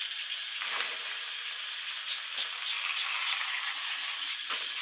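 Phak nam vegetables sizzling steadily in a hot wok over a high flame, with a couple of brief knocks.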